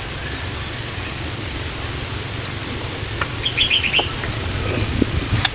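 A bird chirping, a quick run of short high notes about three and a half seconds in, over a steady low rumble, with a sharp click near the end.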